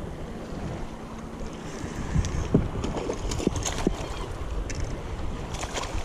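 Strong wind buffeting the microphone over choppy water lapping against a fishing kayak's hull, with a few sharp slaps and splashes about two to four seconds in and again near the end.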